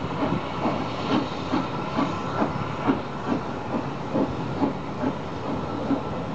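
Steam-hauled passenger train passing and pulling away: a steady hiss with an even beat a little over twice a second.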